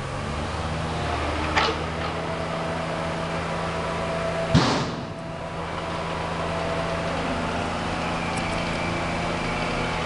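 Heavy truck engine running steadily. Two sharp knocks break through it, a smaller one about a second and a half in and a louder one about four and a half seconds in.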